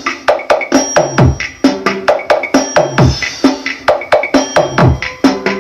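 Electronic dance track played loud through a sound system of amplifiers and large woofers under test: deep kick drums that drop in pitch, with sharp wood-block clicks in a quick, steady rhythm.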